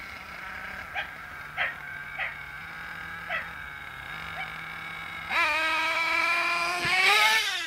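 A dog barks a few times, then a nitro RC truggy engine screams at high revs, growing louder as the car comes past. Its pitch climbs steadily, then drops near the end as it goes by.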